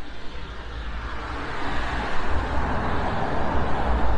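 Road traffic: a vehicle passing close, its tyre hiss on the wet road swelling from about a second in and loudest near the end, over a steady low rumble of traffic.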